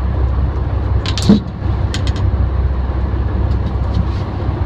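Fishing boat's engine running with a steady low rumble, with a short loud burst about a second in and a few sharp clicks a moment later.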